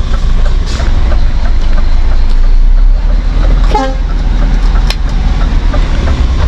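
Scania XT G440 truck's diesel engine running with a steady low rumble, heard from inside the cab while the truck drives slowly on rough ground. A short pitched beep sounds about four seconds in, and there is a single click about a second later.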